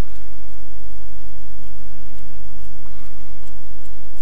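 Steady electrical mains hum, a low buzz with a stack of overtones, underlying the recording. A few faint clicks come from the small metal worm puller being handled.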